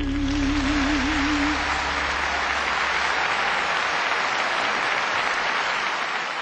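Theatre audience applauding, a dense, even clapping that starts just as the last held, wavering note of the song fades out in the first second or two.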